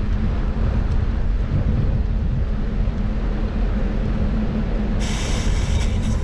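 Steady low rumble of wind and rolling noise picked up by a camera riding on a bicycle. About five seconds in, a loud hiss starts suddenly over the top of it.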